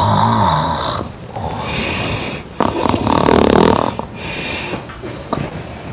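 A sleeping person snoring loudly in long, rasping snores: one right at the start lasting about a second, and a bigger one starting about two and a half seconds in, with quieter breathing between them.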